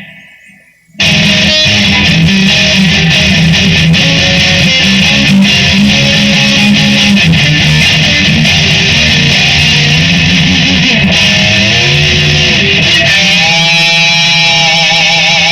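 Electric guitar with mild distortion, coming in loud about a second in after a brief near-silent gap and ringing on through sustained chords and a lead line. Near the end it plays bent notes with wide vibrato.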